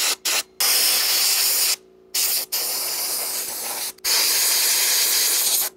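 Compressed air blasting from a blow gun on an air hose, blowing dust out of a server chassis's drive bays. It comes in separate blasts: two very short ones at the start, then longer ones of a second or more with brief breaks between.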